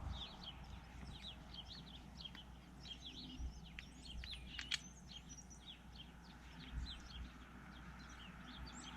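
Faint background birdsong: many short, high chirps in quick succession throughout, with a few soft knocks in the middle.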